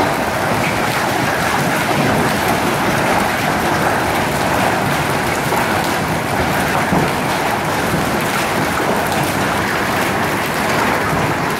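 Hail mixed with heavy rain pelting down onto wet concrete: a loud, steady, dense patter of hailstones and raindrops striking the pavement and puddles.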